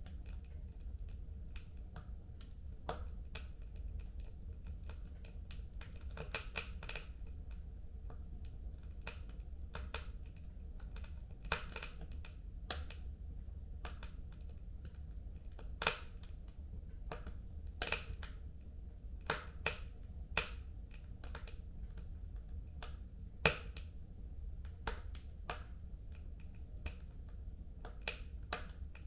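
Wood fire crackling in a home fireplace: irregular sharp pops and snaps, a few much louder than the rest, over a low steady rumble.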